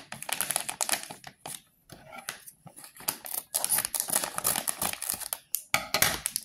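Plastic potato chip bag crinkling in irregular rustling bursts as it is handled and cut open with scissors.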